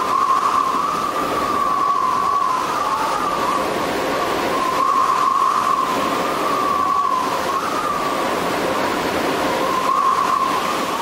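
Tornado vortex exhibit's blower running: a steady rush of air with a wavering whine over it.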